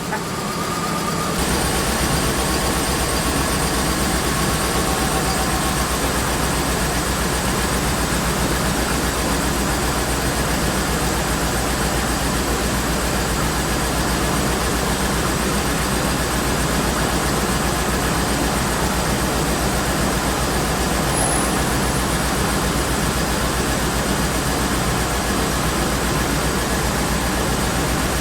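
Land Rover Discovery II's 4.0-litre V8 idling steadily with a misfire, with the freshly fitted power steering pump running. The low rumble gets stronger about a second in, then holds steady.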